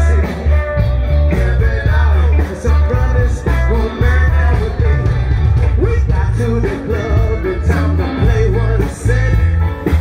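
Music: a song with singing over a strong, pulsing bass line.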